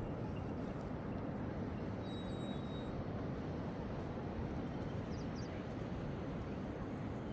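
Steady wind noise, a low rumbling hiss without breaks, with a few faint high chirps about five seconds in.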